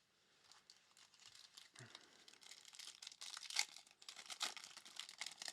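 Trading-card pack wrapper crinkling and tearing as a pack is opened and the cards are handled, a string of light crackles and clicks.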